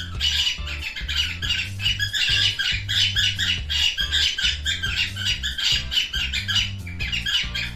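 Cockatiel singing its courtship song: a fast, continuous run of chirps, whistles and squawky warbles, over background music with a steady bass line.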